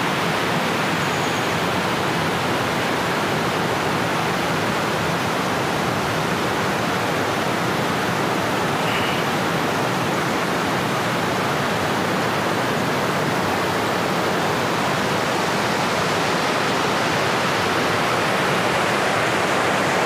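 Steady rush of a river's flowing water, an even hiss-like noise that does not change.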